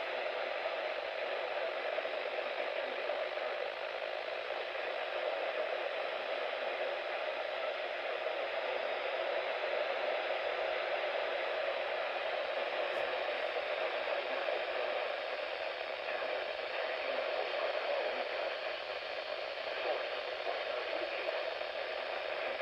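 Steady static hiss from a weather radio's speaker, with no voice coming through: the sound of a weak or lost NOAA Weather Radio signal.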